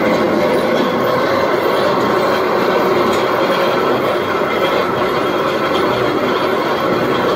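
Organic fertilizer granulator machine running: a loud, steady mechanical noise with a constant hum that does not change.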